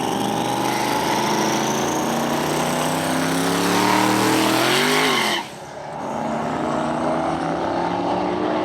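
Twin-turbo 427 V8 drag car accelerating hard, its engine note rising steadily for about five seconds. About five seconds in, the pitch and level drop abruptly, and the engine then runs on at a lower note that slowly climbs again.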